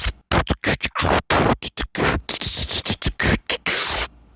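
Rapid stuttering, chopped-up audio: short bursts a fraction of a second long, broken by sudden gaps like a glitching, skipping broadcast, cutting off abruptly near the end.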